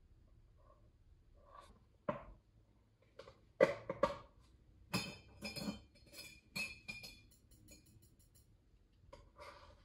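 Glass culture containers and long metal tweezers clinking and knocking as they are handled and set down: a series of sharp clinks, the loudest about three and a half seconds in, some with a brief high ringing.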